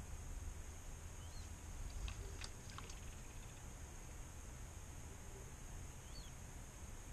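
Faint outdoor ambience: a low wind rumble on the microphone and a steady high hiss, with two short bird chirps, about a second in and again near the end, and a few light clicks between them.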